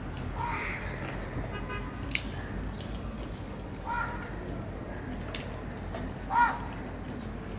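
Eating by hand: fingers squishing and mixing rice and fish curry on a steel plate, with wet chewing and a few sharp clicks. A crow caws three times, the loudest near the end.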